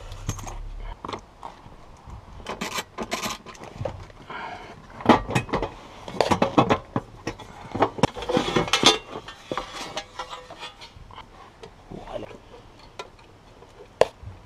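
Irregular clicks, knocks and clatter of hard plastic and metal as hands work at the factory ECU and its wiring-harness plugs in a car's footwell. The clatter is busiest in the middle stretch, with a last sharp click near the end.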